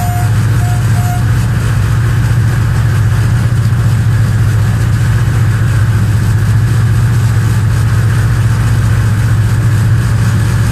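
Diesel locomotive running along the line: a steady, loud low engine drone under an even rushing noise of wheels and air. A high steady tone cuts off just after the start, followed by two short pips about a second in.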